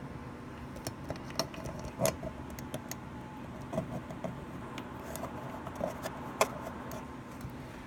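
Irregular light clicks and metallic clinks of small metal objects, such as tools and hardware, being handled. The loudest clicks come about two seconds in and again about six seconds in.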